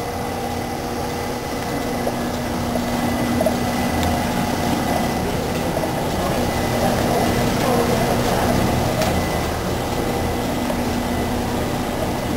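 Dorn 19-inch UV coater with sheet feeder running: a steady machine hum with a few held tones.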